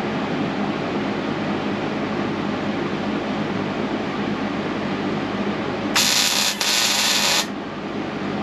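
Steady electrical hum of a MIG welder, then about six seconds in a short burst of welding arc sizzle lasting about a second and a half with a brief break, as a bead is run on a beveled steel frame rail.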